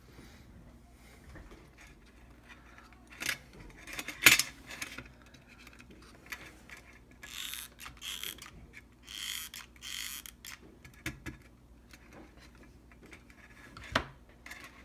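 Hands working a metal Altoids tin and a hot glue gun: scattered clicks and knocks, the loudest about four seconds in, a cluster of short scratchy rasps in the middle, and a sharp click near the end as the lid is pressed shut.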